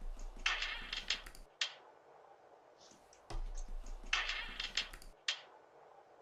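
A Ring doorbell camera being handled and taken down by a thief. There are two bursts of rapid clicking and scraping, each followed by one sharper click.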